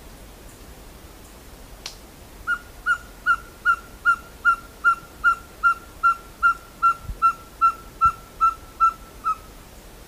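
Ferruginous pygmy-owl calling: a long, even series of about eighteen whistled hoots, some two and a half a second, starting about two and a half seconds in.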